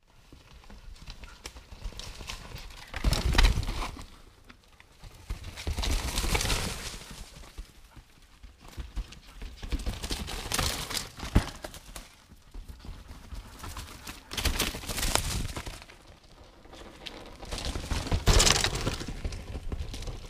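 Downhill mountain bikes rolling over a rocky dirt track, their tyres crunching and knocking on the rocks. The noise comes in five separate surges, each a second or two long, one about every three to four seconds.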